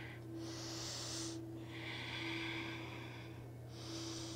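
Slow, audible human breathing close to the microphone during a seated forward fold: three long breath sounds in turn, one about half a second in, a longer one around two seconds, and another near the end.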